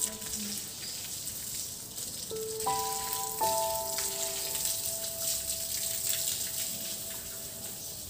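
Water from a garden hose spattering onto wet stone floor tiles, a steady hiss, under soft background music with long held notes that change about two and a half and three and a half seconds in.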